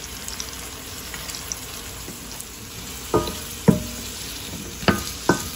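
Shallots frying in hot oil in a stainless steel kadai, sizzling steadily. From about three seconds in, a wooden spatula stirs them and knocks the pan four times, each with a short metallic ring.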